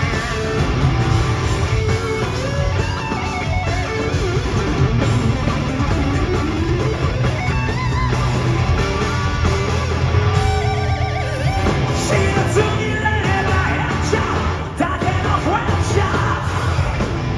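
Live hard-rock band playing loud: distorted electric guitars, bass and drums, with singing and shouted vocals.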